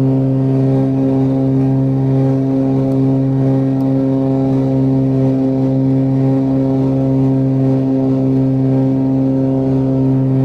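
Cessna 402's twin piston engines and propellers at takeoff power during the climb-out, heard from inside the cabin as a steady, deep drone.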